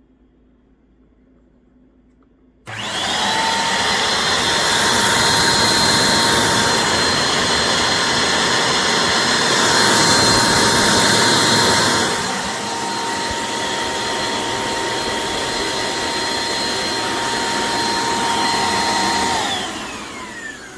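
Dirt Devil Razor Pet bagless upright vacuum switched on, running steadily with a high motor whine, then switched off near the end, its whine falling as the motor spins down.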